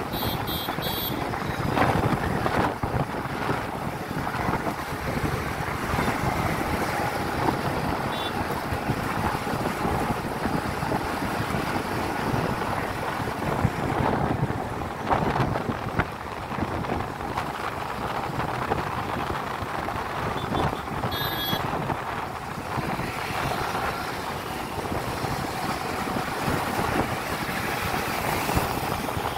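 Steady wind buffeting the phone's microphone on a moving two-wheeler, mixed with the hum of its engine and the surrounding highway traffic.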